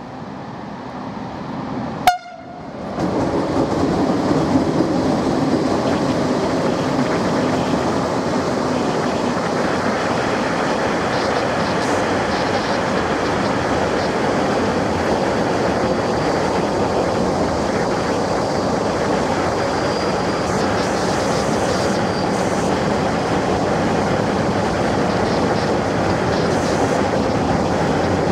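Electric freight locomotive and covered hopper wagons passing close by, with the steady rumble and rattle of wheels on the rails. A very short horn toot comes about two seconds in, just before the train reaches the microphone.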